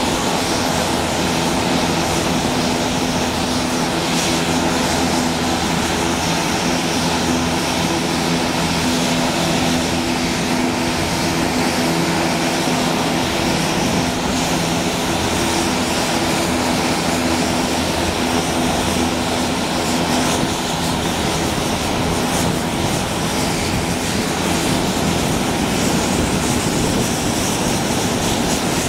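Turboprop engines of several Embraer A-29 Super Tucanos running on the ground with their propellers turning, a loud, steady drone with a humming propeller tone. About two-thirds through, the hum loses its steady pitch as one aircraft taxis up close.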